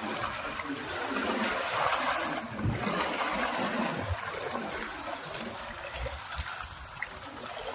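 Sea water washing and lapping against shoreline rocks in a steady rush that swells and eases, with a few low thumps of wind buffeting the microphone.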